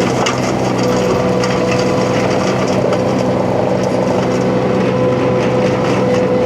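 Mini skid steer engine running under load, driving a hydraulic hammer-knife flail mulcher, with a steady whine and a scattered crackle of brush and wood being shredded.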